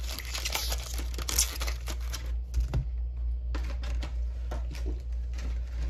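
Foil Pokémon card booster pack wrapper being torn open and crinkled for about the first three seconds, then lighter, scattered rustles and clicks.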